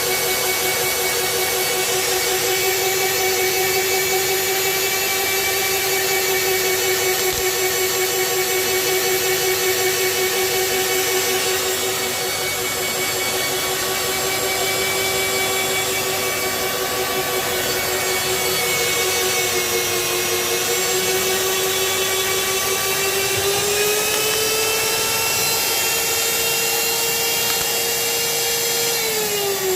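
Magnetic drill's electric motor running with a steady high whine, driving a cutter into iron. The pitch sags slightly about two-thirds of the way in, climbs a little a few seconds later, and near the end starts falling as the motor winds down.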